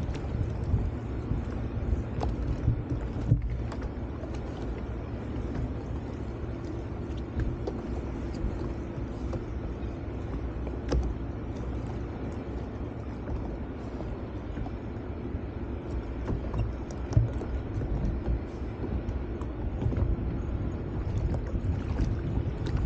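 Sea-Doo FishPro jet ski engine idling steadily, with wind on the microphone.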